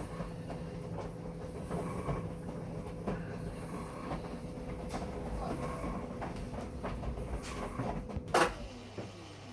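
Panasonic fully automatic washing machine running mid-wash: a steady motor hum with irregular clattering and knocking, the abnormal noise that has appeared after about ten years of use. A loud knock comes about eight seconds in, then the hum cuts out and falls away in pitch.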